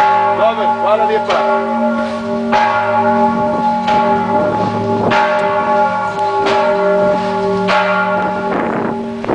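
Church bells ringing: several bells sounding together, each struck about once a second, their tones ringing on and overlapping between strikes.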